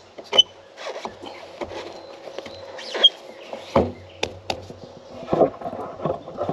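Handling noise from a mower seat's vinyl-padded armrest being raised and worked on its metal pivot bracket. Scattered clicks, knocks and rubbing, with a heavier thump a little past halfway.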